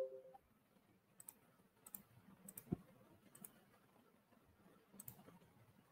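A handful of faint, irregular computer clicks, some in pairs, against near silence. A short two-tone sound that started just before fades out at the very start.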